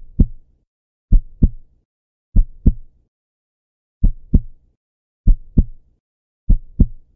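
Heartbeat sound effect: low lub-dub double thumps, one pair about every 1.2 seconds, with a slightly longer gap near the middle.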